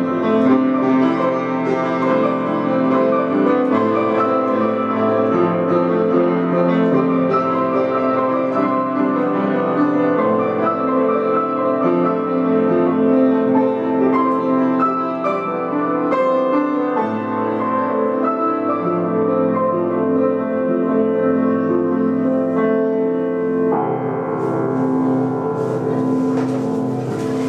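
Upright piano played as a duet by two players, sustained chords under a moving melody. Near the end a held chord rings under a rustling noise.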